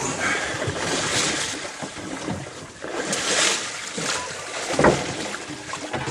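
Wind on the microphone and sea water sloshing against a small boat's side, with a sharp knock about five seconds in.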